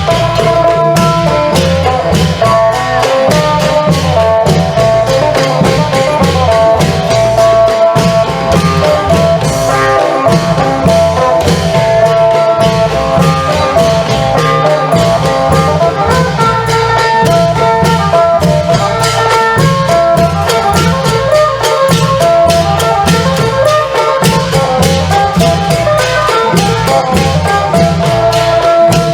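Isan klong yao long-drum ensemble playing traditional folk music: a steady beat of the long drums under a plucked phin lute melody, with quick high percussion strokes on top.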